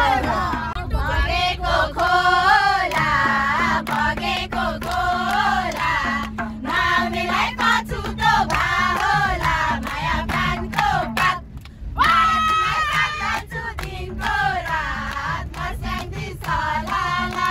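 Several voices singing a Nepali dohori folk song, the melody wavering and drawn out, with a steady low hum underneath from about three seconds in.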